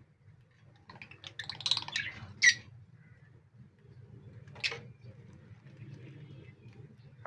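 Pet lovebirds chirping: a run of short, high chirps about a second in, ending in one loud, shrill chirp, then a single chirp a couple of seconds later. A low, steady hum runs underneath.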